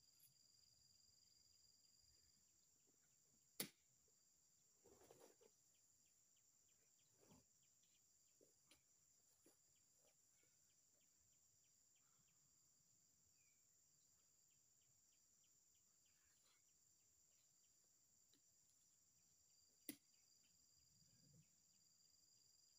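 Near silence: a faint, steady high chirring of insects such as crickets, broken by two sharp knocks, one about four seconds in and one near the end, with a few soft scuffs between them.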